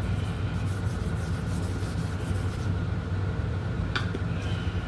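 Electric sander fitted with a polishing pad running steadily, buffing metal polish into car paint around a scratch. There is a light click about four seconds in.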